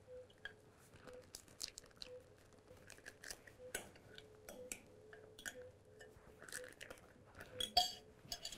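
A metal spoon scooping sticky minced salmon in a glass bowl: soft, irregular wet squishing and scraping, with light clinks of the spoon against the glass and a slightly louder clatter near the end.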